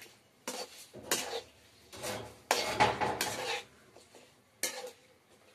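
Long metal spoon scraping and clanking against a metal karahi as cauliflower florets are stirred into the masala, in five separate strokes, the longest lasting about a second.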